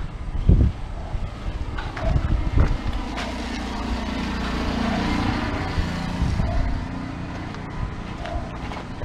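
A motor vehicle passing on the road, its engine and tyre noise swelling to the loudest about five seconds in and then fading. A few low thumps in the first three seconds.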